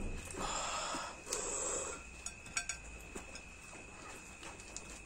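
Person eating close to the microphone: two loud, breathy sniffs or slurps in the first two seconds, then a few small wet clicks of chewing and mouth sounds. A faint steady high tone hums underneath.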